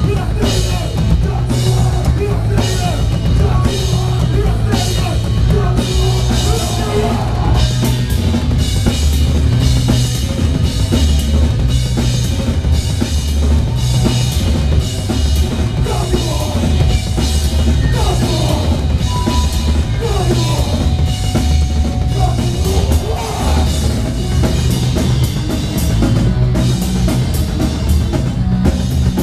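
Live hardcore punk band playing a fast song, heard from the drum kit: bass drum, snare and cymbals loud and close over distorted electric guitar and bass.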